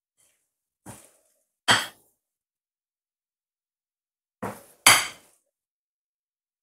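Metal wire whisk clinking against a glass mixing bowl while beating thick cake batter: two sharp clinks about a second in, and two more about four and a half seconds in, the second of each pair the louder.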